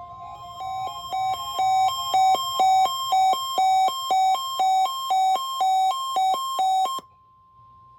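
NOAA Weather Radio warning alarm tone, the steady 1050 Hz tone sent for the required weekly test. A second alarm beeps over it, alternating between two pitches about twice a second, and stops suddenly about seven seconds in, leaving the steady tone alone.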